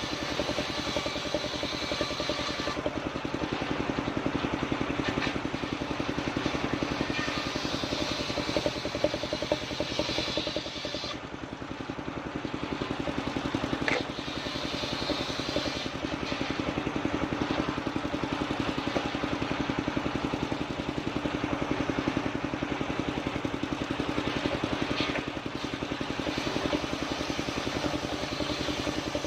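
Engine-driven portable circular sawmill running steadily, its blade cutting sengon timber. The higher-pitched cutting noise drops away for a few seconds about eleven seconds in, then returns.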